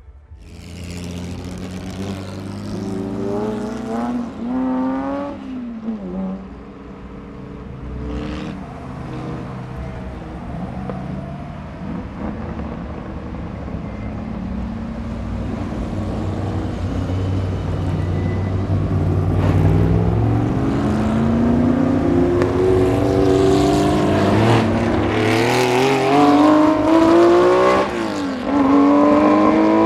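Porsche 908/3 Spyder's air-cooled 3.0-litre flat-8 racing engine accelerating hard. The engine note climbs, drops sharply at a gear change about five seconds in, runs lower and steadier for a while, then climbs again with another drop near the end. It grows louder as the car draws closer.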